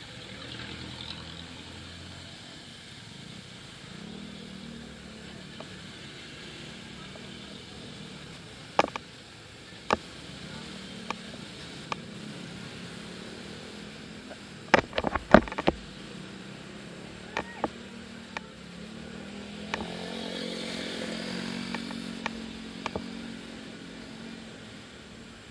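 Honda motor scooter's small engine running steadily while riding in traffic, swelling as it speeds up about 20 seconds in. Sharp knocks come now and then, loudest in a quick cluster about halfway through.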